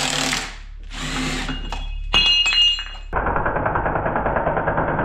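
Cordless impact driver working the bolts on a Volkswagen 020 transmission case: short bursts at first, a brief high squeal after about two seconds, then from about three seconds in a steady, rapid hammering as it drives a bolt.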